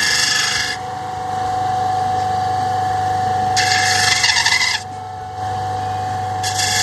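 Electric disc sander running with a steady motor hum as small cast resin pieces are pressed against the sanding disc, giving a hissing, rasping grind three times: at the start, about halfway, and near the end.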